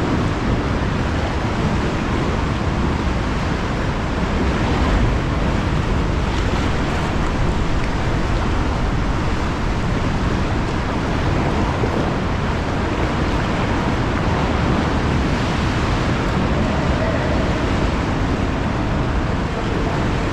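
Ocean waves surging and crashing inside a sea cave, a steady deep rushing of water that echoes off the rock.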